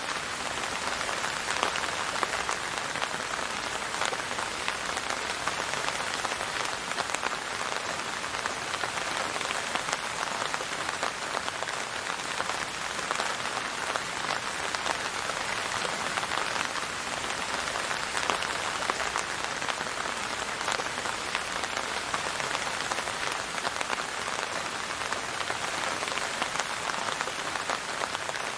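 Steady rain falling, a constant hiss dense with small drop patters.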